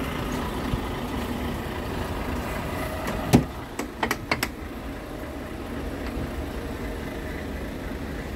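Scania P340 truck's diesel engine idling steadily, with one sharp click of the cab door latch a little past three seconds in and a few lighter clicks and knocks as the door swings open.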